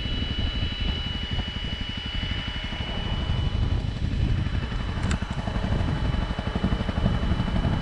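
Honda CRF250 Rally's single-cylinder engine running at low road speed, a fast steady pulsing, with wind noise on the microphone.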